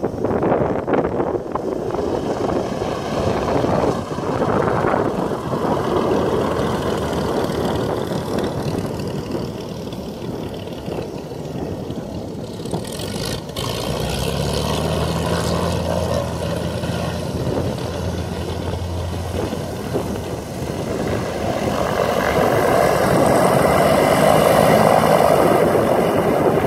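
Britten-Norman Islander's twin piston engines and propellers running at low taxi power after landing, a steady drone that grows louder near the end as the aircraft comes closer.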